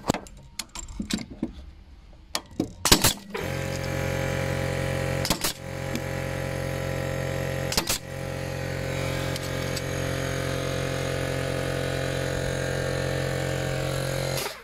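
A Bostitch strap nailer fires nails through the holes of metal joist hangers, with several sharp shots in the first three seconds and two more later. About three and a half seconds in, an air compressor's motor starts up, runs with a steady hum, and cuts off suddenly near the end, refilling its tank after the nailing.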